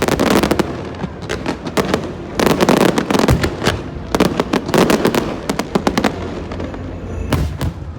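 Aerial fireworks bursting in dense crackling clusters of rapid bangs, swelling in waves about every two seconds with brief lulls between.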